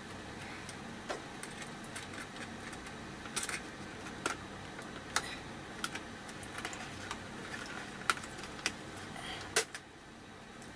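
Scattered small plastic clicks and taps, about eight of them spread irregularly, as the small gauge needles and pry tool are handled on a truck instrument cluster, over a steady low hum.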